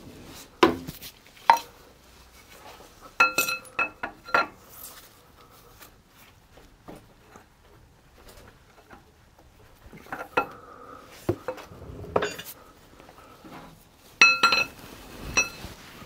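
Sharp metallic knocks with a short ringing tone: a copper drift bar being hammered against a Peugeot 205 GTI's passenger driveshaft bearing support to drive it off its locating pins. The blows come in groups: two near the start, a quick run of about five around three to four seconds in, a few more around ten to twelve seconds, and a last burst near the end. The part stays stuck.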